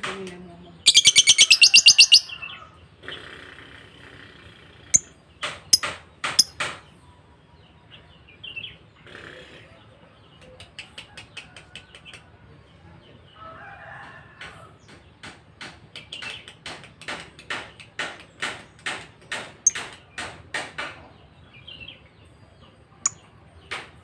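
Lovebird chirping: short, sharp chirps in runs, at times about two a second, with a loud rapid trill about a second in.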